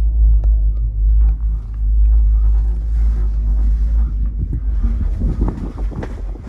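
Wind buffeting the microphone inside a moving aerial tram cabin with open windows, a steady low rumble, with scattered small knocks and rustles from about four seconds in.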